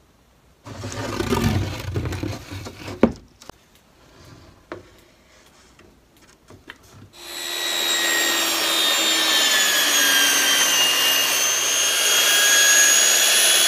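Rubbing and a few knocks as pieces are shifted on the bench, then about seven seconds in an old Skil circular saw starts and runs steadily, cutting a plywood panel along a straightedge guide, with a motor whine that drifts slightly in pitch.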